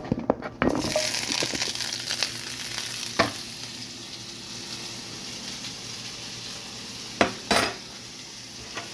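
Seasoned potatoes frying in a cast iron skillet: a few quick utensil knocks, then a loud steady sizzle that rises sharply under a second in. Single sharp knocks of a utensil on the pan come about three seconds in and twice near the end.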